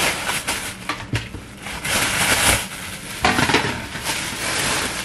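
A plastic grocery bag rustling and crinkling in irregular surges as items are pulled out of it.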